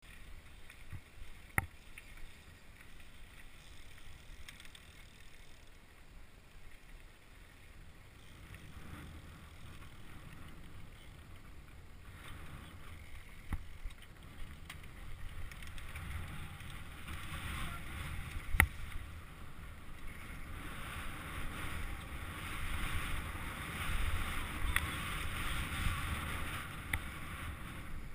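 Mountain bike riding over dirt and gravel trail: tyres rolling and rumbling, wind noise on the microphone, and the bike rattling. There are a few sharp knocks, the loudest about two-thirds of the way through, and the noise grows louder in the second half as the pace picks up.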